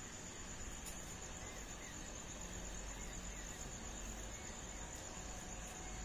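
Crickets trilling steadily at one high, even pitch over a faint background hiss, with a few small, quiet chirps.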